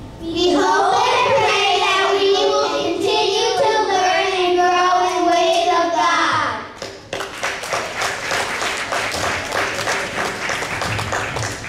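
Young children singing together into stage microphones, holding a sung phrase for about six seconds. Audience applause follows.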